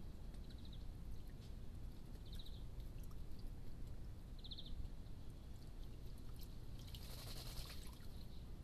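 Common wood pigeons splashing in a shallow water tray as they bathe, with a burst of splashing about seven seconds in. Before it come three faint, short, high trills and a few light ticks.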